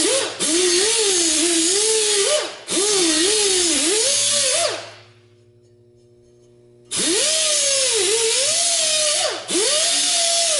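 Air-powered right-angle die grinder with a 50-grit Roloc disc grinding the edge of a steel lawnmower blade to sharpen it, with a whine that sags in pitch as the disc bites into the metal and recovers as it lifts. It runs in passes with brief let-ups and stops for about two seconds in the middle.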